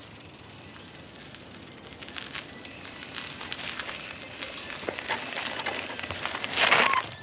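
Child's bicycle rolling over a cracked, gritty paved lane: tyres crackling on grit, with small clicks and rattles. It grows louder as the bike comes close, loudest in a rush of noise just before the end.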